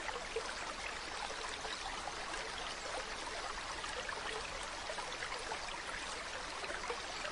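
Mountain stream running: a steady rush of water with small splashes and bubbling over rocks.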